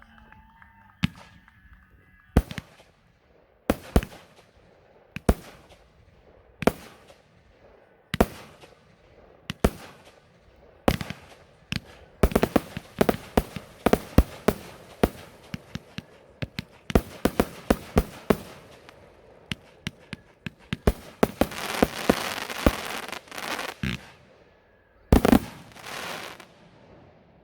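Fireworks going off. Single sharp bangs come about every second and a half, then give way to rapid volleys of many bangs. A dense crackling stretch follows about two-thirds of the way through, and a couple of last bangs come near the end.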